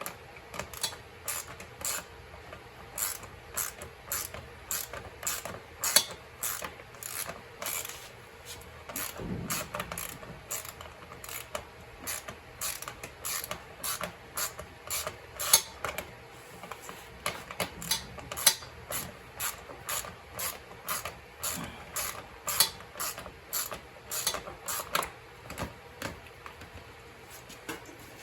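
Ratchet wrench clicking over and over, about two or three clicks a second with short pauses, as it works an 8 mm shroud bolt that has stripped out and will not come free.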